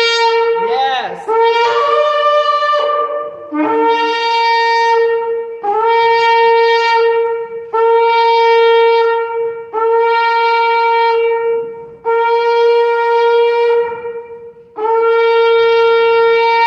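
A shofar (ram's horn) being blown. It starts with a few short, wavering blasts that bend in pitch, then gives a series of six long, steady blasts of about two seconds each on the same note, with brief pauses between them.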